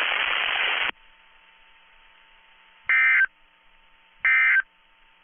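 Weather-radio receiver static hiss that cuts off abruptly about a second in, then two short electronic tone beeps, each about a third of a second long and about a second and a half apart.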